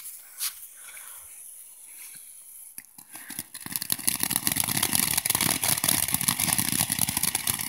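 Consumer ground fountain firework (Golden Flower). Its lit fuse burns quietly, then about three and a half seconds in it erupts into a loud, steady hiss with dense crackling as it sprays sparks.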